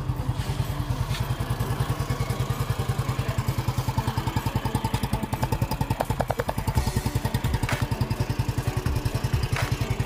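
Yamaha LC135's single-cylinder four-stroke engine idling through an aftermarket UMA Racing exhaust, heard at the muffler tip as a steady, fast chug of exhaust pulses.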